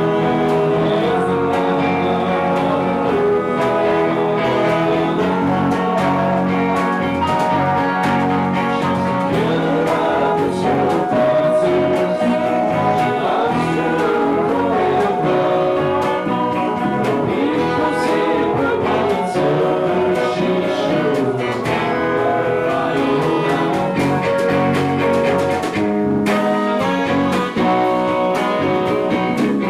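Live rock band playing a song: guitar and other instruments with singing.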